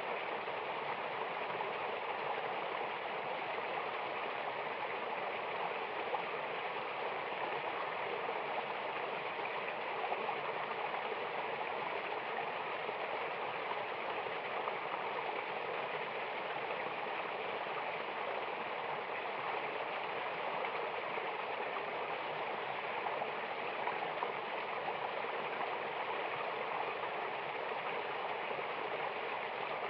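Mountain waterfall rushing with a steady, even sound.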